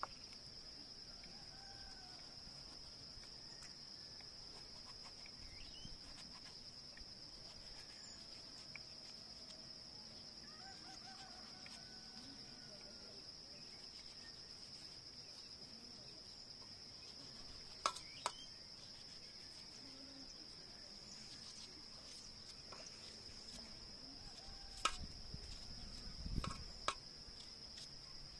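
Steady high-pitched insect chorus, with a few sharp knocks about two thirds of the way in and several more near the end.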